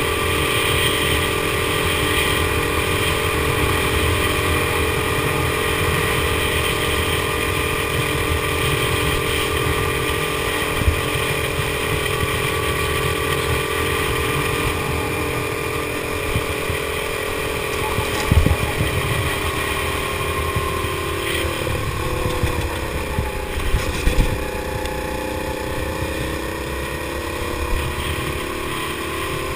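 Go-kart engine running at speed, heard from onboard, its pitch steady for most of the time and then dropping and climbing back about three-quarters of the way through as the throttle is eased and reopened. Wind rush on the microphone underneath, with a couple of sharp knocks.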